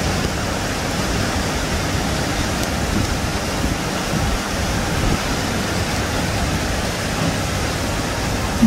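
Steady, even rushing hiss with no separate events, loud throughout.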